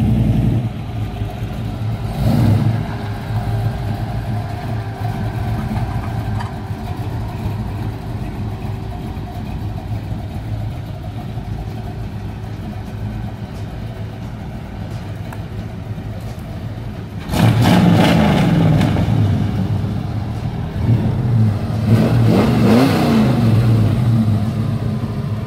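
Chevrolet V8 muscle-car engine idling with a steady, deep burble. It is revved briefly about two seconds in, then revved repeatedly from about 17 seconds in until near the end.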